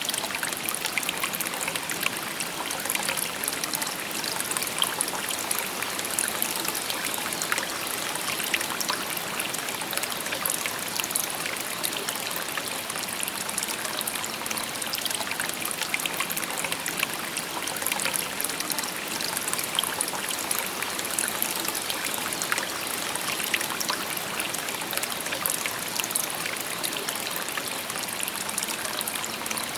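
Shallow river babbling and trickling over stones, a steady rushing splash with fine bubbling and crackling detail.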